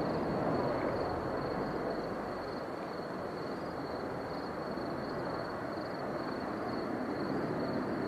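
Boeing 727-100 jet engines heard at a distance on approach: a steady rumble that grows louder near the end.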